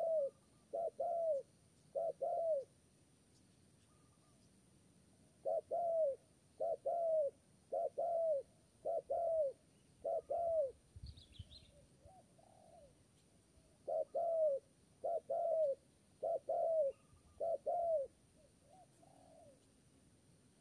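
Spotted dove cooing in runs of quick, stuttering paired coos, each run a few seconds long, with pauses of about three seconds between them. A brief high chirp from another bird and a low thud come in the middle pause.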